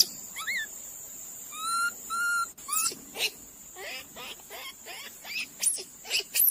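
Two short whistled calls, then, after an abrupt change, a quick run of short, high squeaks and chirps from a small animal, each falling in pitch.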